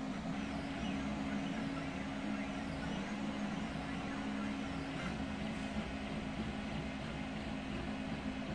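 CoreXY 3D printer running a print: the stepper motors whine and hum under the running hot-end fans. The whine rises and falls in pitch about once a second as the print head traces curved paths.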